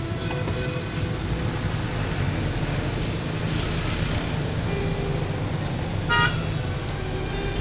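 Steady low engine drone heard from inside a bus moving through street traffic. A vehicle horn gives one short toot about six seconds in.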